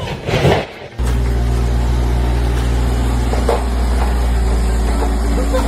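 Steady, even engine-like drone from a machine running at constant speed. It cuts in abruptly about a second in, after a few short knocks.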